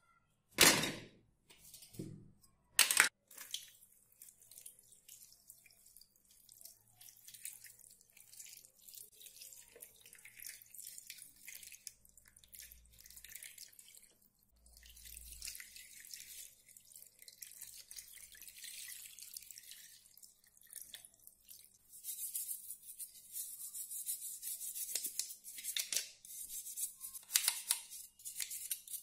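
Plastic toy gun parts clack into a plastic tub three times in the first few seconds. Water is then poured from a plastic bottle into the tub with a faint, steady trickle. From about two-thirds of the way in, a toothbrush scrubs the wet plastic parts with a rapid, rasping brushing.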